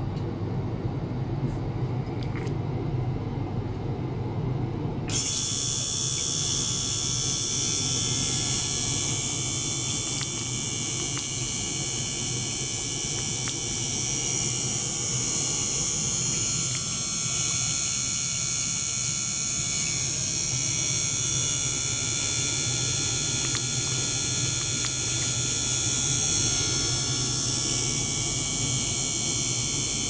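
Small liquid-circulation pump running with a steady low rumble as water is pumped through tubing into a glass jar. About five seconds in, an ultrasonic bath switches on and adds a steady high-pitched whine of several tones over a hiss from the cavitating, bubbly water.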